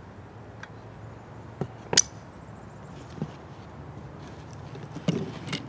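Parts of a radio antenna kit being handled in a cardboard box: a few light clicks and knocks, with one sharp clink about two seconds in, over a steady outdoor hiss.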